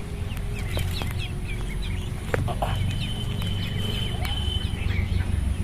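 Ducklings peeping: a group of duck chicks giving many short, high, downward-sliding chirps that overlap one another, over a steady low hum.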